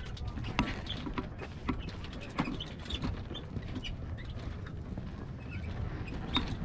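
A hang glider's frame clicking and creaking as it is lifted off a vehicle rack and carried, with footsteps on dry dirt, over a low wind rumble on the microphone.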